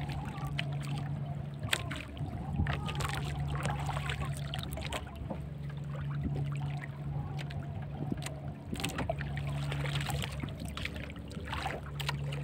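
Small outrigger boat's engine idling with a steady low hum that swells and fades every few seconds, with a few sharp knocks as a longline is hauled in by hand.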